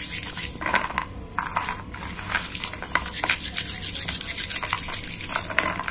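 Roasted garlic cloves rubbed under the palm against a plate, their dry papery skins rustling and scraping in quick strokes as they come loose. The rubbing eases off briefly about a second in, then carries on.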